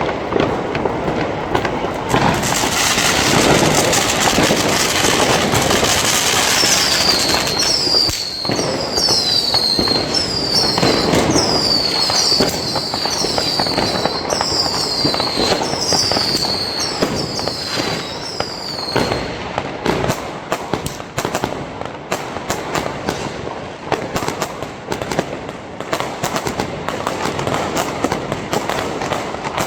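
New Year's fireworks and firecrackers going off continuously: dense crackling and banging, with a run of repeated falling whistles from about seven seconds in until about nineteen seconds.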